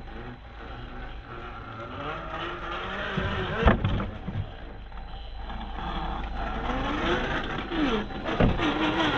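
RC scale crawler's motor and drivetrain whining, the pitch rising and falling as the throttle changes, with a sharp knock about three and a half seconds in and another near the end.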